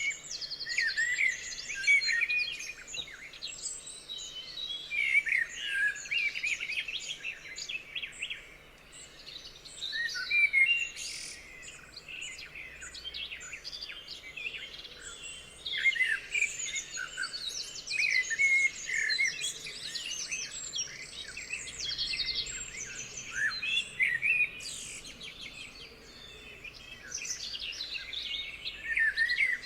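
Several birds singing and calling at once: a dense chorus of overlapping chirps, whistles and rapid trills.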